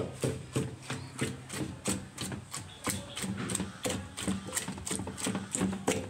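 Wooden pestle pounding in a wooden mortar, crushing chopped tomatoes and spring onions: a steady rhythm of dull knocks, about three a second.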